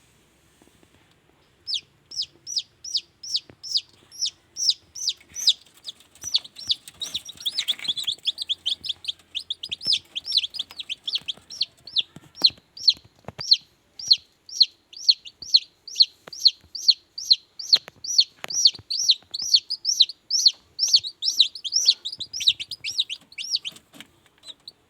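Newly hatched kampung chicks peeping over and over: short, high, falling peeps about three a second, starting about two seconds in, with several chicks calling at once for a while in the middle.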